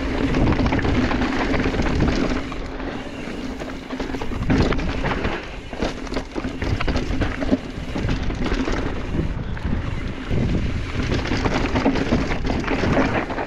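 Mountain bike riding down a rough rocky trail: wind buffeting the microphone, tyres rolling over rock and dirt, and the bike clattering with frequent sharp knocks over bumps.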